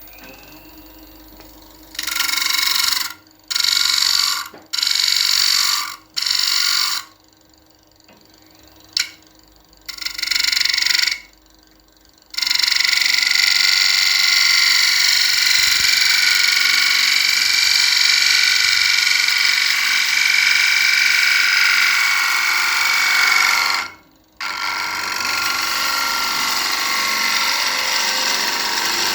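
Wood spinning on a Powermatic PM2014 lathe being worked by a hand-held tool, giving a harsh, shrill hiss. It comes in short strokes of about a second at first, then one long pass of about eleven seconds, a brief break, and another long pass.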